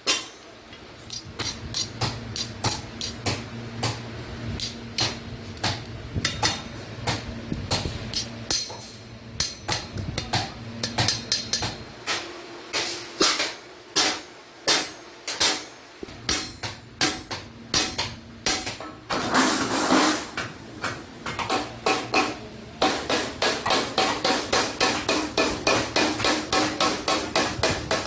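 Hammer blows on sheet iron, ringing metal-on-metal strikes, uneven at first and then a fast steady run of about four blows a second near the end.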